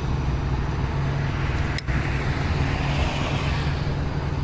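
Steady low rumble of an idling engine mixed with road-traffic noise. About two seconds in, a brief dropout is followed by a rushing noise that swells and fades.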